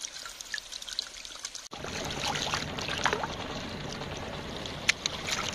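Water pouring and trickling, with a few light clicks; the sound changes abruptly about two seconds in to a fuller, steadier wash of water.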